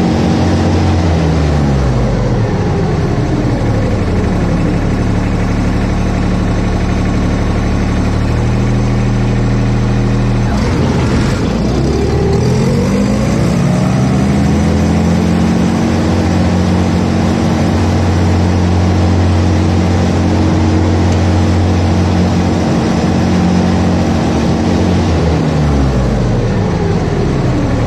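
Zero-turn mower with a grass-collection blower running. Its pitch falls away in the first two seconds, dips sharply and climbs back up about a third of the way in, holds steady, then falls again near the end, as the blades and blower are disengaged and wind down, then spin back up.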